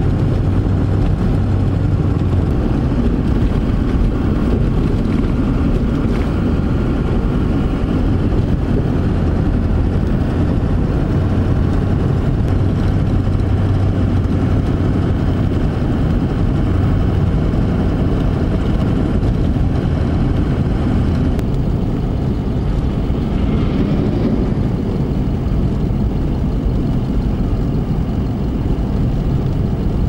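Car driving on a snow-covered road, heard from inside the cabin as a steady low rumble of engine and tyres.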